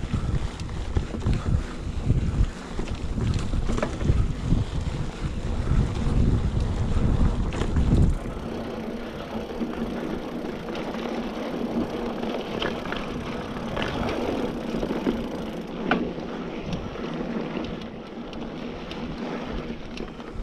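Wind buffeting the microphone of a chest-mounted action camera on a moving mountain bike, over tyres rolling on a dirt trail and scattered clicks and rattles from the bike. About eight seconds in the wind rumble drops away, leaving the quieter tyre noise and rattles.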